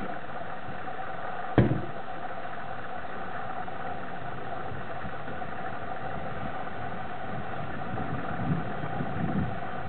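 A steady mechanical hum, engine-like and unchanging, with one sharp knock about a second and a half in and a little low rumbling near the end.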